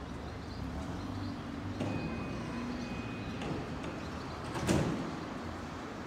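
Sliding doors of a JR Yokohama Line E233 series electric train closing at the platform. A steady high warning tone sounds for about a second and a half, and about four and a half seconds in there is a short, loud burst, the loudest moment.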